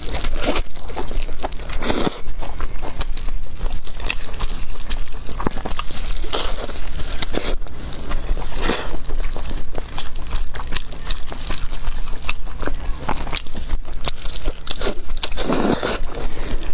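Close-miked eating: biting into and chewing pork knuckle, a dense run of wet mouth clicks and smacks. Several louder bites and crunches come about 2, 6, 9 and 15 seconds in.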